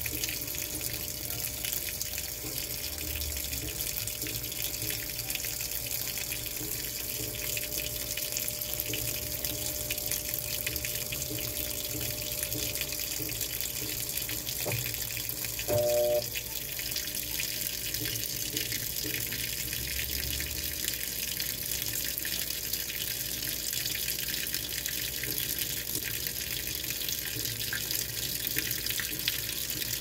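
Top-loading washing machine filling: a steady stream of water pouring from the fill inlet into the tub, splashing onto the agitator and the soaking clothes. About halfway through, a short beep-like tone sounds once.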